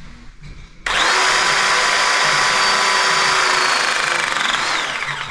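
Powered pipe press tool running as its press jaw closes on a press fitting of a multilayer composite heating pipe. A steady motor whine starts suddenly about a second in, runs for about four seconds, and tapers off near the end as the press cycle completes with the jaw fully closed.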